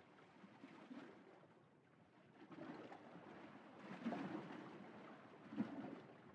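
Faint rustling of a sail bag and sailcloth being opened and handled, with a few soft bumps, the loudest about four seconds in and again near the end.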